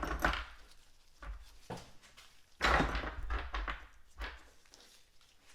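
Handling noises from hands-on work on a bare engine: a brief knock and scrape at the start, then a longer, louder scrape lasting about a second, about two and a half seconds in, with a few lighter knocks between.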